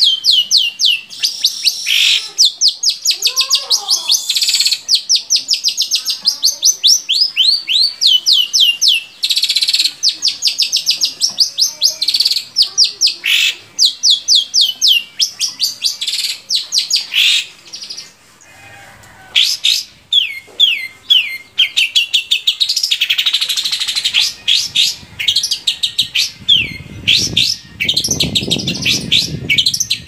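Long-tailed shrike (cendet) singing: long fast trains of sharp, falling chirps, many to the second, broken by harsh scratchy notes, with a short pause a little past halfway. A low rumble sits under the song near the end.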